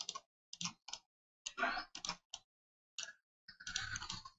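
Computer mouse clicking: about eight short, separate clicks at uneven intervals, then a longer stretch of noise about three and a half seconds in.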